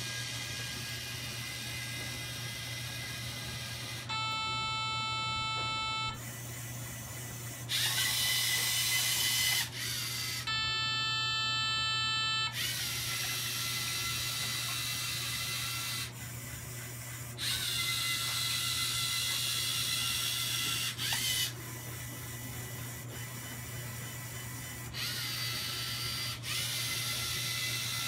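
Electric motors of a small LEGO Mindstorms wheeled robot whirring in stop-start stretches of a couple of seconds each as it drives and turns. Two of the stretches carry a high, steady whine.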